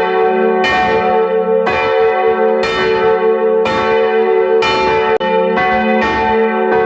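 Church bells ringing, struck about once a second, each stroke's tones carrying over into the next in a continuous ring.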